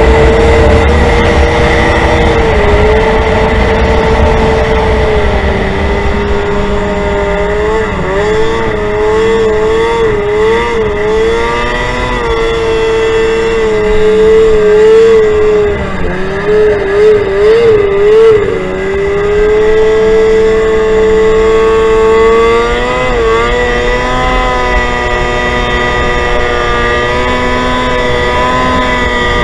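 Snowmobile engine running at speed. Its pitch mostly holds steady but wavers quickly up and down twice, about a third of the way in and again just past the middle, then climbs briefly a little later.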